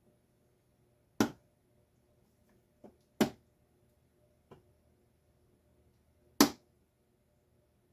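Sharp clicks and knocks from hand work on the parts of a Stanley garage door opener being taken apart: three loud ones about a second, three and six seconds in, with two fainter ones between.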